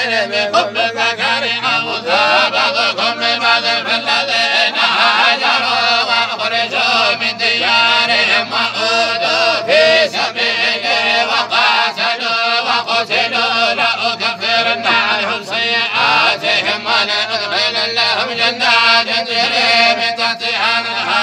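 Several men's voices reciting the Quran together in unison in a slow, drawn-out melodic chant, the Sharqi style of Moroccan group recitation by Quran students (tolba).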